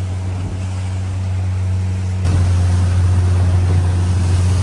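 Outboard motor running steadily as the boat trolls at about 14 km/h, a low even drone with water rushing past the hull. About two seconds in the sound steps up louder.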